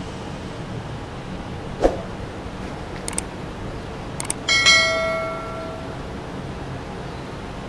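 Subscribe-button animation sound effect: a short pop, then two quick pairs of mouse clicks, then a bell chime that rings out and fades over about a second and a half, heard over a steady hiss of street ambience.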